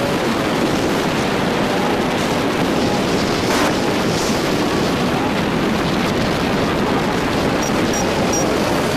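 Steady wind and road noise from riding a motorbike through traffic, with wind buffeting the microphone and a brief louder gust about three and a half seconds in.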